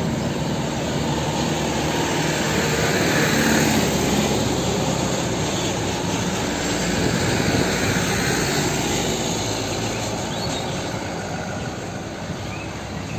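Diesel engines of heavy trucks running close by as they pass in traffic: a steady engine noise that fades over the last few seconds.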